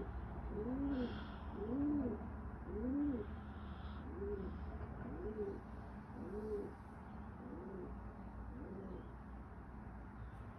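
A bird cooing in a steady series of low hoots that rise and fall, about one a second. They grow fainter after about four seconds and stop near the end.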